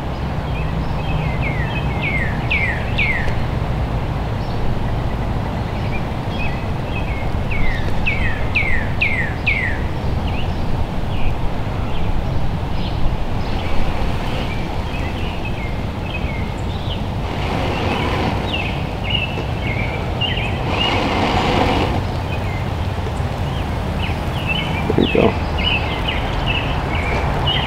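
Songbirds chirping in quick runs of falling notes and later twittering, over a steady low rumble. Twice, around the 18 and 21 second marks, there is a short rush of breath as a smouldering char-cloth ember in a bird's nest tinder bundle is blown on to bring it to flame.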